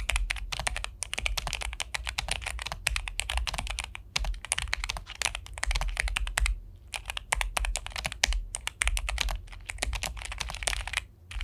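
Typing on an Epomaker Luma 84 low-profile mechanical keyboard: fast runs of crisp key clicks, broken by short pauses about four, six and a half and eleven seconds in.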